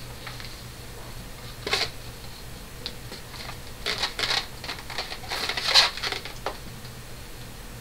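Handling noises of a small plastic mini sewing machine being set down and moved about on cloth: scattered knocks and rustles, in groups about two, four and six seconds in, the loudest near six seconds.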